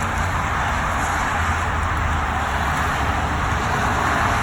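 Steady highway traffic noise: the continuous rush of passing vehicles and their tyres on the road.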